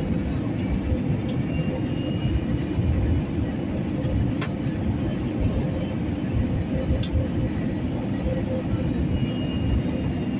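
Steady low rumble of a jet airliner heard inside the cabin, with a faint steady hum and two light clicks, one about halfway through and one a few seconds later.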